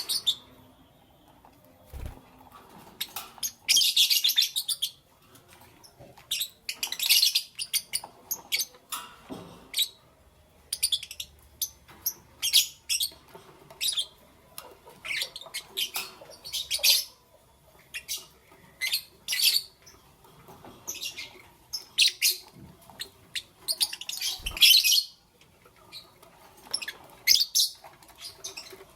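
Lovebirds chirping in quick, shrill bursts of calls, one after another with short gaps. Twice there is a brief low thump.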